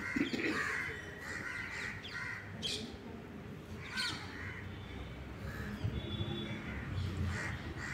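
Faint background with scattered bird calls, two sharper calls about two and a half and four seconds in.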